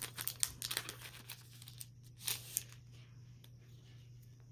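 Foil booster-pack wrapper crinkling and tearing as the cards are pulled out of it. There are rapid crackles in the first second, two sharper crinkles about two seconds in, then quieter rustling of the cards being handled.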